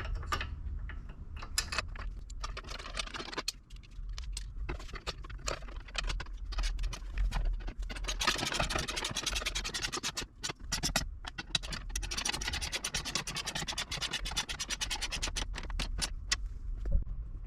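Socket ratchet clicking rapidly in two long runs, about eight seconds in and again from about twelve to fifteen seconds, as bumper bolts are turned; before that, scattered knocks and scrapes of metal hardware being handled and fitted.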